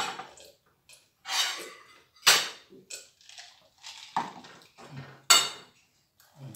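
Serving tongs clinking and scraping against a metal pan and plates as noodles are dished out: a string of sharp separate clinks, the loudest about two seconds and five seconds in.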